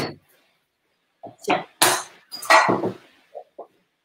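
Kitchenware being handled on a worktop: one sharp knock at the start, then a run of clinks and clatter from about one and a half to three seconds in.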